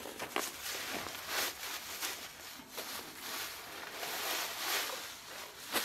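Synthetic camouflage net fabric rustling as it is picked up and unfolded by hand, in a run of uneven rustles. The Chinese-made fabric is a noisy one.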